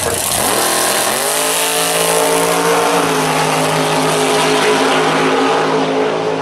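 1957 Chevy Tri-Five drag car's engine at wide-open throttle as it launches off the line and runs down the drag strip. The pitch climbs steeply in the first second, then holds high, with a slight drop about three seconds in.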